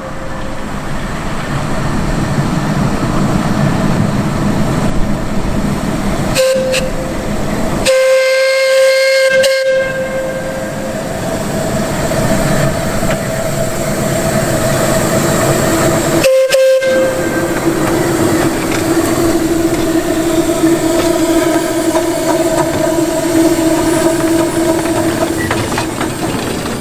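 One-foot gauge 0-4-2 steam locomotive running on a test run after a slide-valve repair, with a steady chuffing rush of noise from the engine. Its whistle sounds in short blasts: a brief one about six seconds in, a longer one around eight seconds, and another around sixteen seconds.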